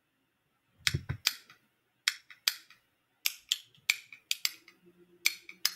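A pair of metal spoons played as a percussion instrument, clacking together in quick, irregular clusters of sharp metallic clicks, starting about a second in.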